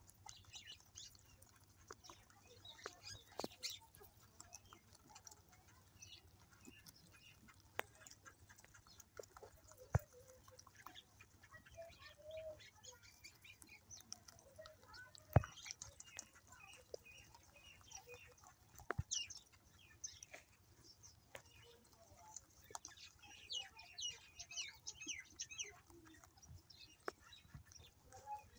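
Rabbits chewing apple peels, with faint crunching and nibbling clicks and a few sharper clicks. Small birds chirp in the background, more busily near the end.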